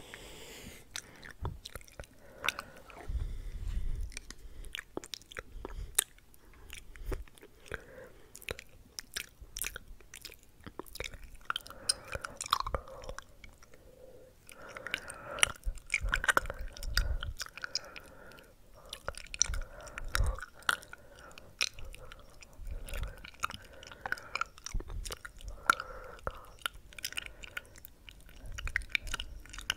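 Close-miked ASMR mouth sounds: many quick clicks, with a few low thuds.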